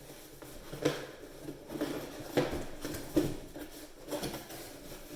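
A faucet box being unpacked: cardboard and packaging rustle, with five or so light knocks and clinks as the faucet parts are handled.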